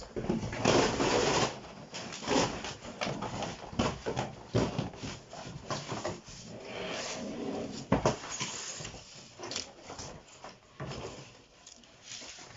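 Irregular knocks, scrapes and rustling from flat-pack wardrobe parts and their cardboard packaging being handled while unpacking.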